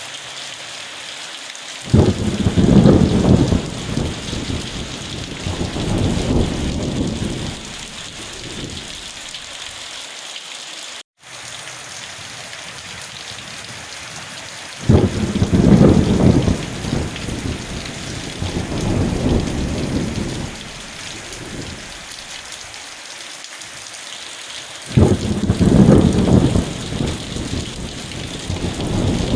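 Steady rain hiss with three rolls of thunder, each rumbling for several seconds, starting about two seconds in, midway through and near the end. The sound cuts out for an instant just before the middle.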